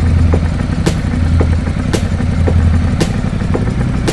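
Ducati Multistrada 1200 S's L-twin engine running with a steady low hum, and a sharp tick about once a second with fainter ticks between.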